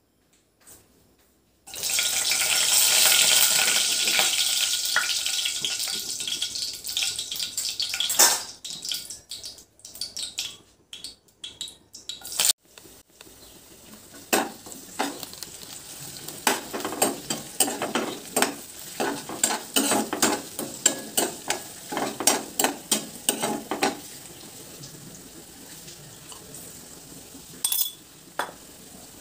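Spices and sliced onions dropped into hot oil in a kadai, which bursts into a loud sizzle about two seconds in and fades over several seconds. After that a steel ladle stirs the frying onions, with many quick clinks and scrapes against the pan over a softer steady sizzle.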